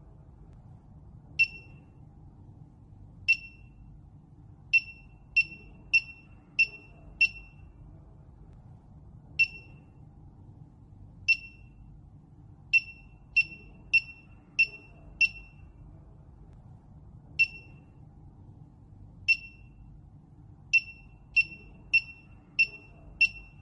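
Short, high-pitched beeps from a SENKO SP2nd portable oxygen gas detector, about twenty in all at uneven spacing, some in quick runs of nearly two a second, as its buttons are pressed to set the alarm level.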